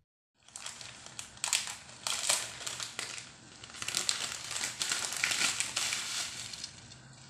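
Plastic packaging crinkling and crackling in irregular bursts as it is handled.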